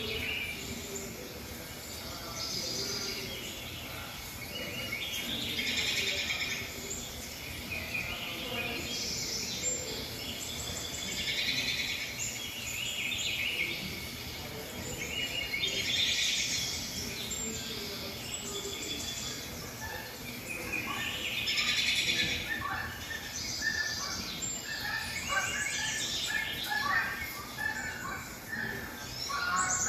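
Wild birds chirping and calling in a nature recording played through a television's speakers. The chirping swells in bouts every five seconds or so, with quicker, shorter chirps crowding in during the second half.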